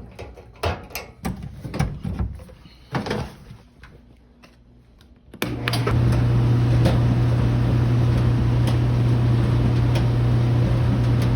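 A few scattered knocks and clicks, then about five seconds in a clothes dryer starts suddenly and runs steadily, with a deep motor hum under the rush of the tumbling drum and blower. It is running again after its burned-out thermal cutoff fuse was replaced.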